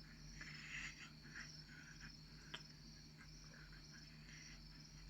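Faint scratching of a lock pick working the pins of a 5-pin pin-tumbler lock, with one small sharp click about two and a half seconds in.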